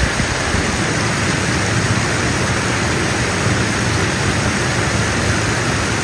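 Steady rush of water pouring down a waterfall: an even, unbroken hiss.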